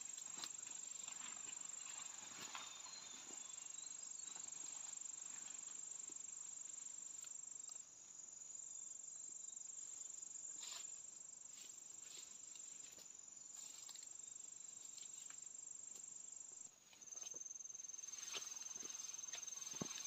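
A steady, high-pitched drone of insects (crickets or cicadas) whose pitch shifts slightly twice, with scattered rustles and snaps of footsteps and brushing through forest undergrowth.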